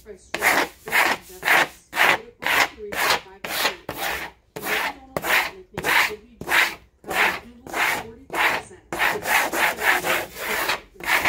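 Hand squeegee scraped back and forth over a large vinyl decal sheet, burnishing the vinyl down: rasping paper-and-plastic strokes at a steady rhythm of about two a second, with a brief pause about nine seconds in.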